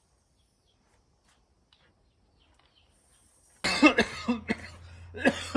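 Near silence with a few faint clicks, then about three and a half seconds in a man starts coughing hard, in several rough bursts over a steady low hum.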